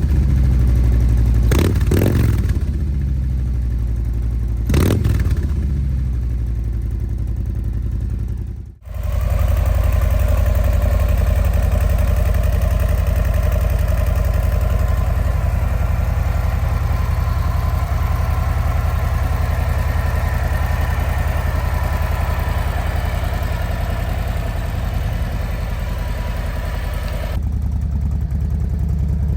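2023 Harley-Davidson Low Rider ST's Milwaukee-Eight 117 V-twin running through its mufflers, blipped twice in quick revs in the first few seconds, then settling to a steady idle. The sound cuts out briefly about nine seconds in, then the steady idle resumes.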